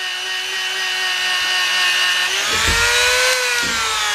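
Rotary tool with a buffing bit polishing aluminum, its motor giving a steady high whine. About two and a half seconds in, the pitch rises and then eases back down, with some rubbing at the same time.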